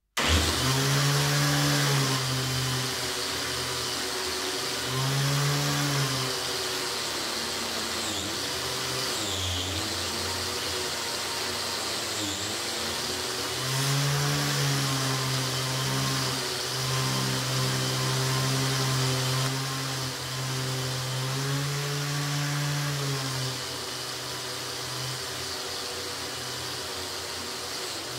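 Bench-mounted angle grinder with a wire wheel, switched on at the start and running, its wire brush scraping rust off a steel piece held against it. The motor's pitch sags several times as the work is pressed in, then recovers.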